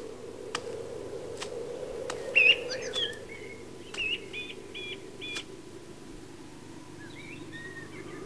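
Small birds chirping in short, repeated calls, the loudest about two and a half seconds in, over a steady low background hum, with a few faint clicks in the first few seconds.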